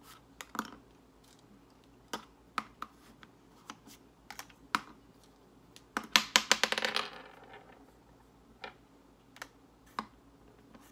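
Large lead buckshot pellets clicking against each other and the shotshell hull as they are set in a few at a time, with a brief dense clatter of pellets about six seconds in.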